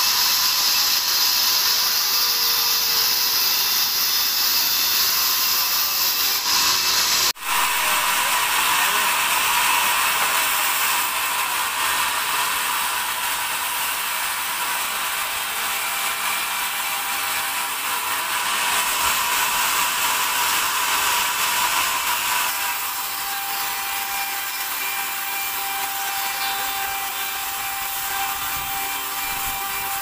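Sawmill machinery running steadily, a constant high hiss with a few steady whining tones, cutting out for an instant about seven seconds in.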